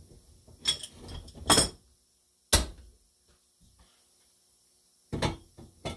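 Steel exhaust pipes knocking and scraping together as a freshly expanded pipe end is test-fitted onto another pipe held in a vise. There are about five sharp metal knocks, the sharpest one about two and a half seconds in, and a quiet stretch before two more near the end.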